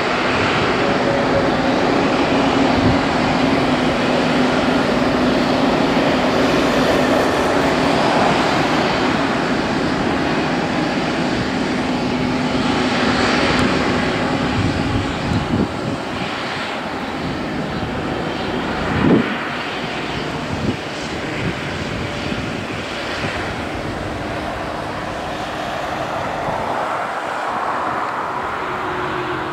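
Boeing 787-8 Dreamliner's twin GEnx-1B turbofan engines running at low taxi power: a steady jet rush with a low steady hum that fades out about halfway through. A brief thump comes about two-thirds of the way in.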